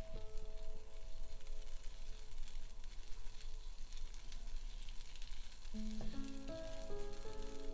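Butter sizzling as it melts and foams in a small nonstick frying pan, being pushed around by a silicone spatula: a steady crackling hiss.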